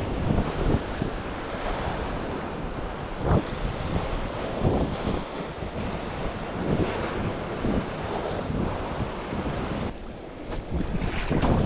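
Wind buffeting the microphone in uneven gusts, over the wash of sea waves.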